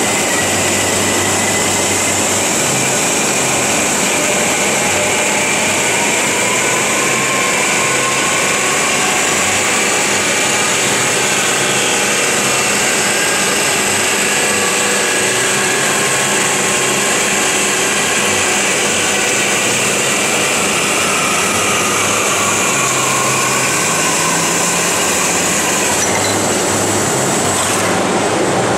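FMB Omega semi-automatic band saw cutting through solid metal bar: a steady running noise with a high whine and squealing tones that slowly drift in pitch.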